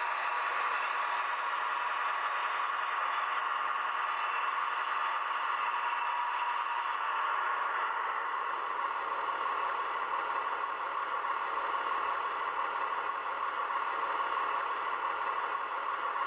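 Sound decoder in a Roco H0 model DB class 628 diesel railcar playing the diesel engine sound through the model's small speaker, thin and without bass, with a rattle from the model running on the track. About seven seconds in, the model comes to a halt: the high hiss cuts off and the engine sound runs on at a standstill.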